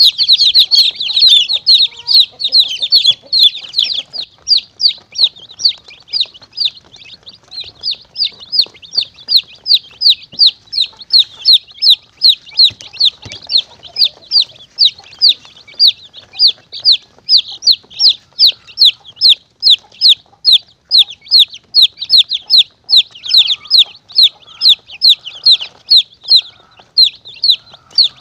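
Domestic chicks peeping, a short high falling peep repeated about three times a second, crowded and overlapping for the first few seconds and then evenly spaced. It is a chick distress call played as a lure to draw monitor lizards and mongooses.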